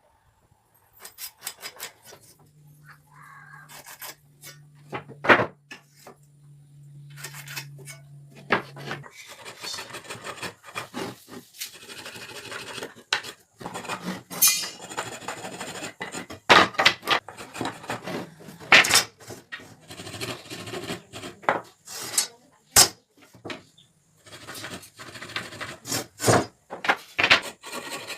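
Wood being worked with tools: rasping and scraping on wood with frequent sharp knocks and clacks. A steady low hum sounds for several seconds near the start.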